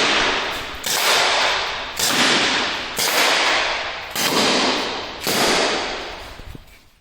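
Umarex .50 caliber CO2 air pistol fired in rapid succession: five sharp cracks about a second apart, each followed by about a second of fading echo. The sound cuts off abruptly near the end.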